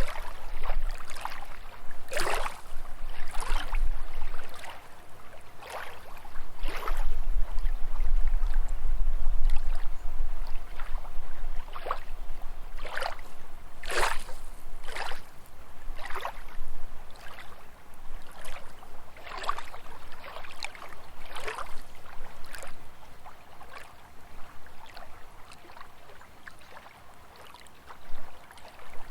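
Small lake waves lapping, with soft splashes every second or two, some stronger than others, becoming gentler near the end.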